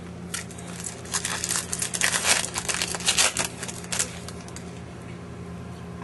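Crinkling and rustling of a foil trading-card pack wrapper being handled, in a quick run of crackles from about one second in to about four seconds in.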